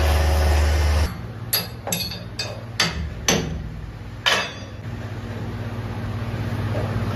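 A workshop machine running steadily cuts off about a second in, followed by six or seven sharp, ringing metal knocks at uneven intervals, like a hammer striking metal parts, over a low background hum.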